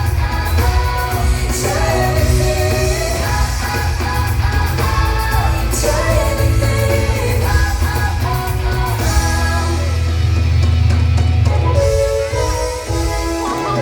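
Music: a song with singing over a heavy bass.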